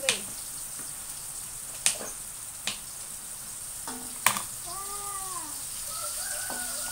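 Oil sizzling steadily as mushrooms deep-fry in a wok, with four sharp knife taps on a cutting board as tempeh is sliced.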